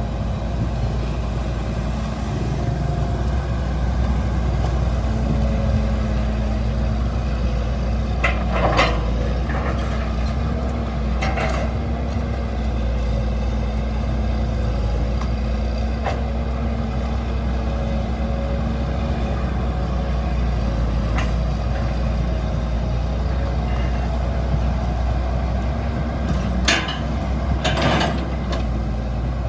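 Excavator's diesel engine running steadily under load, with a few short, louder mechanical noises from the working machine about a third of the way in and near the end.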